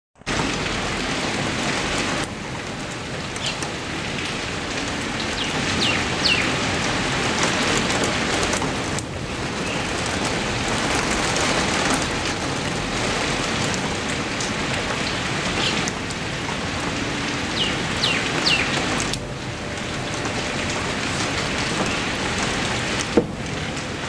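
Heavy rain pouring onto leafy bushes and trees, an even, steady hiss. Its level steps down slightly a few times, and a single sharp tick comes near the end.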